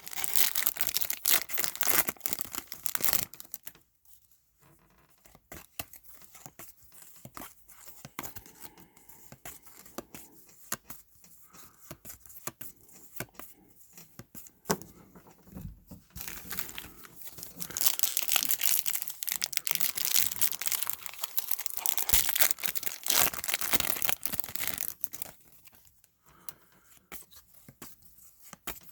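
Trading card pack wrappers being torn open and crinkled. There is a burst of crackling at the start, quieter rustling of card handling in the middle, and a longer stretch of tearing and crinkling from about sixteen seconds in.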